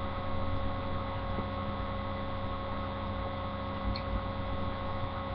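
Steady electrical hum over a faint hiss, with no distinct event.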